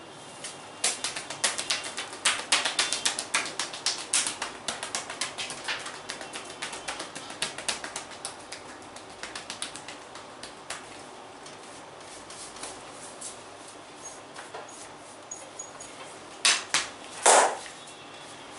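Hands slapping and tapping on skin in a percussive massage: a fast, uneven patter of many strikes a second that thins out around ten seconds in, then two or three louder slaps near the end.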